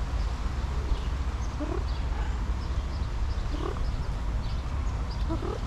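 Tuxedo cat giving three short rising calls about two seconds apart, over a steady low rumble.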